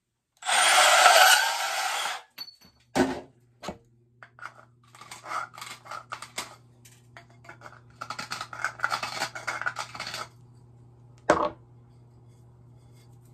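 Milwaukee M12 compact bandsaw cutting through 3/4" Type L copper pipe in about two seconds, followed by a knock. A hand deburring tool then scrapes round the cut end of the pipe in quick strokes for several seconds, reaming out the burr.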